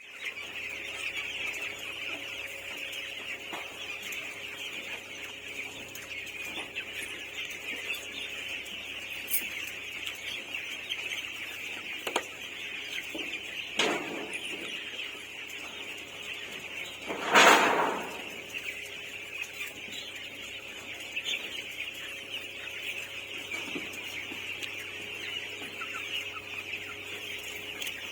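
A flock of chickens in a poultry house, a steady dense din of many birds calling and clucking together, with one much louder brief sound about two-thirds of the way through.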